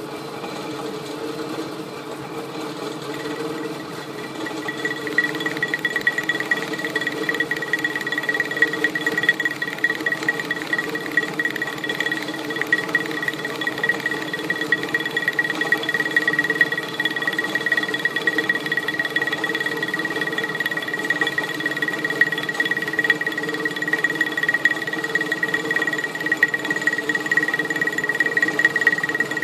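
Millrite milling machine's spindle running with a steady hum, and from about four seconds in a corner-rounding cutter cutting along the edge of a metal plate, adding a steady high whine with a ragged, chattering edge.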